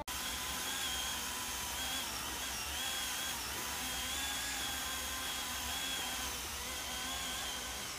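Chainsaw running steadily at high revs, cutting low into a small tree trunk, its pitch wavering slightly under load.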